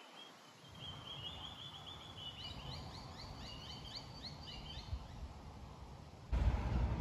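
A songbird singing a run of quick, high chirping notes that lasts about five seconds, over a low rumble of wind on the microphone. Near the end a sudden gust of wind hits the microphone loudly.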